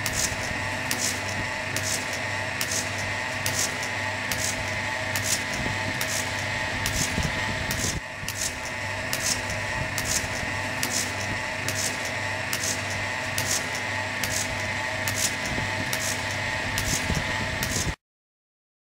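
Portable electric milking machine running under vacuum: the motor and vacuum pump give a steady hum and whine, with the pulsator hissing in a regular rhythm about twice a second as the cups milk the cow. It cuts off suddenly near the end.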